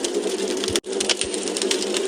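Wood fire crackling, with rapid irregular snaps and pops over a steady low hiss. The sound cuts out for an instant just under a second in.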